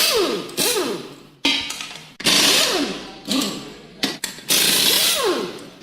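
Power tool run in repeated short bursts, each starting abruptly and fading out with a falling whine as it winds down.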